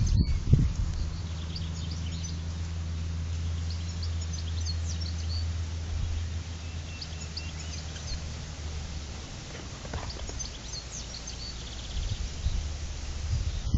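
Small birds chirping intermittently over a steady low hum.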